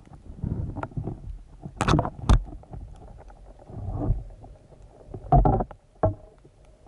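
Muffled underwater sound picked up by a camera in a waterproof housing: a low water rumble, two sharp knocks about two seconds in, a louder burst of noise a little past five seconds and another knock soon after.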